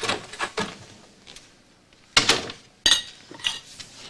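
Dishes and cutlery clinking and clattering: a run of small clinks, then two sharp knocks close together about two seconds in, the second ringing like china or glass.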